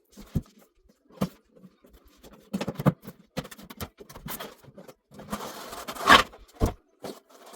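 Cardboard box and packaging being handled and opened: a few sharp knocks and scrapes with rustling bursts, the loudest about six seconds in.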